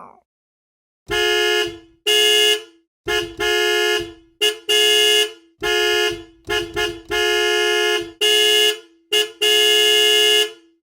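Car horn honking over and over in a string of short and long blasts, a dozen or more beeps, the last one the longest.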